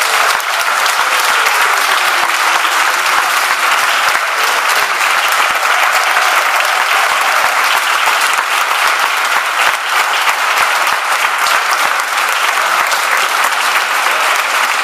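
Audience applauding, a dense, steady clapping from a roomful of people.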